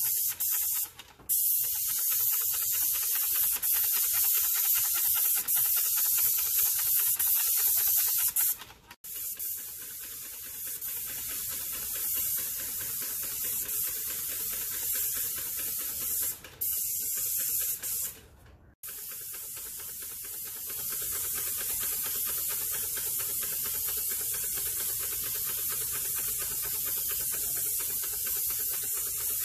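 Airless paint spray gun hissing steadily as it sprays paint onto a wall, cutting off sharply four times and louder over the first eight seconds or so.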